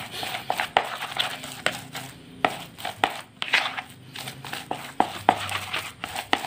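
A plastic rice paddle mashing and scraping a crumbly bait mixture against the inside of a plastic bowl: irregular scrapes and soft crunches, one stroke after another.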